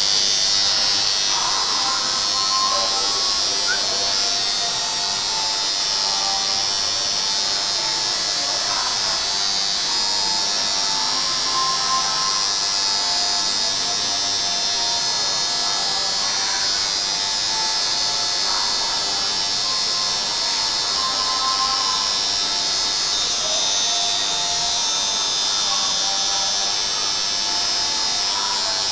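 Electric tattoo machine buzzing steadily as the needle works into the skin, with music playing underneath.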